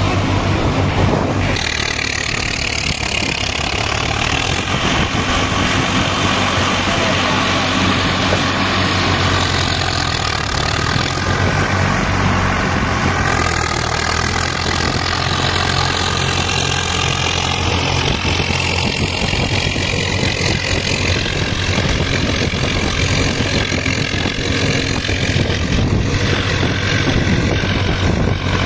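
Massey Ferguson Smart 245 4WD tractor's diesel engine running steadily under load, pulling a rotavator through flooded paddy mud.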